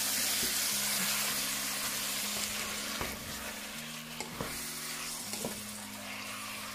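Seasoned chicken pieces sizzling as they brown in a pan with no water added, stirred with a wooden spatula that gives a few light taps and scrapes around the middle.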